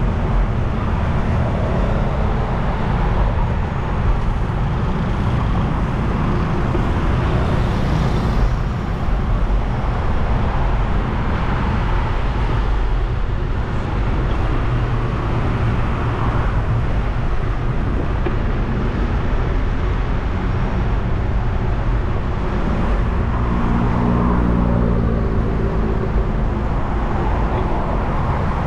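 Road traffic: motor vehicles running and passing, a steady low rumble throughout. About three-quarters of the way through, one vehicle's engine hum stands out above it.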